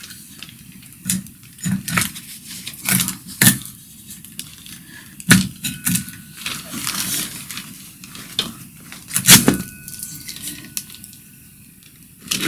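Metal clicks, knocks and scrapes from taking apart an MXUS 3000 W electric hub motor as the copper-wound stator is worked loose and lifted out of its hub shell. The two loudest knocks come about five and nine seconds in.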